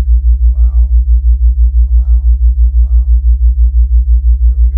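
A deep low tone pulsing evenly about six times a second: a theta-wave beat for brainwave entrainment. A faint voice sits well underneath it.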